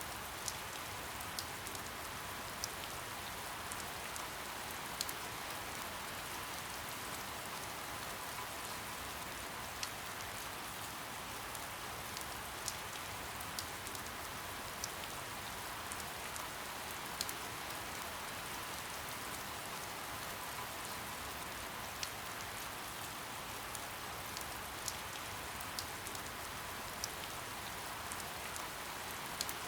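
Soft steady rain: an even hiss of falling rain with scattered individual drops ticking sharply every second or two.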